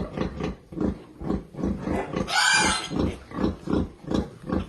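Pigs grunting in a quick, steady run of short grunts, with one loud squeal about two and a half seconds in.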